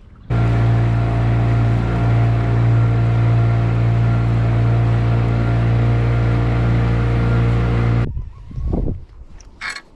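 Small fishing boat's outboard motor running at a steady cruising speed, an even drone that holds one pitch. It cuts off abruptly about eight seconds in.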